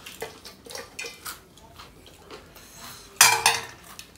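Stainless steel bowl and plate clinking as curry is tipped out over rice: several light metal clinks, then a loud metal clank with a short ring about three seconds in as the bowl is put down.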